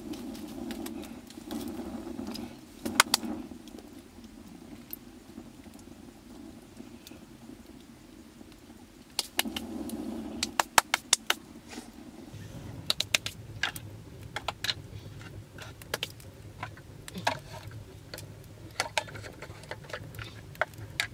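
Irregular sharp clicks, knocks and clinks of firewood and metal skewers being handled at a wood fire in a clay oven, with short stretches of low rumbling noise.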